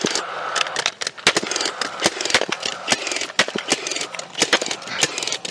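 Two fencing staple guns, a Milwaukee M18 FUEL cordless stapler and a Stockade gas-powered stapler, firing 9-gauge staples into wooden fence posts in quick succession: sharp, irregular shots at about four a second, often overlapping, over a steady mechanical whir.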